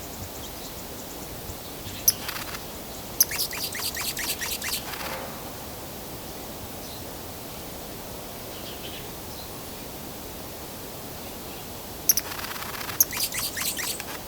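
Broad-billed hummingbird giving two bouts of rapid, dry chattering chips: one about two seconds in that lasts about three seconds, and another near the end. A steady hiss of background noise runs underneath.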